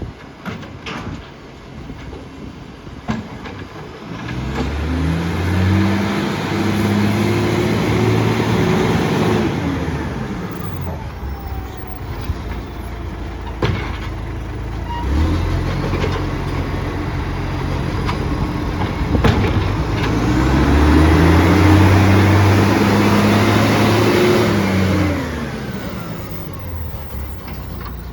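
Garbage truck diesel engine revving up, holding high revs for several seconds and dropping back, twice, with a roar from a massive exhaust leak. A few sharp knocks sound between the revs.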